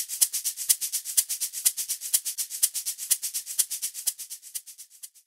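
Background music reduced to a fast, high-pitched percussion rhythm of about eight even strokes a second, with stronger accents about twice a second, fading out at the end.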